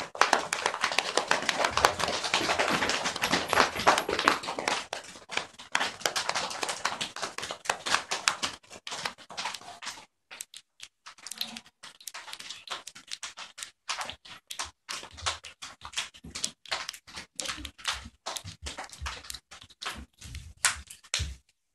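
A class of young children imitating a rainstorm with their hands: a dense, fast patter of many pats and claps, which stops about ten seconds in and gives way to scattered single taps and clicks as the rain dies down.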